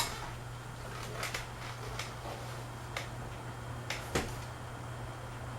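Fanimation Belleaire ceiling fan running on high speed: a steady low hum, with a few scattered light clicks.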